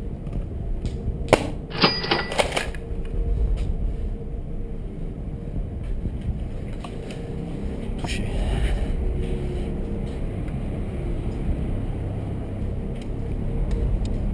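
Low rumble of wind and movement on a body-worn action camera's microphone as the wearer moves about. A sharp click comes about a second in, followed by a brief clatter of sharp knocks with a short metallic ring.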